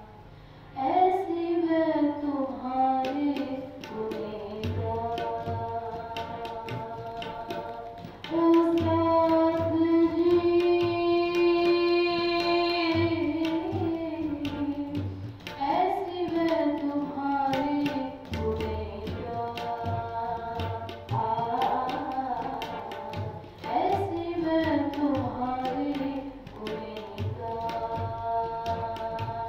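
A woman singing a Hindi devotional song into a microphone, with long held notes that slide between pitches, the longest and loudest from about 8 to 13 seconds in. A drum keeps a steady beat underneath.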